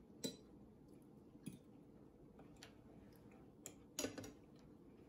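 Knife and fork clinking and scraping against dinner plates while chicken is cut and eaten: a handful of short, sharp clinks with quiet between them, the loudest just after the start and about four seconds in.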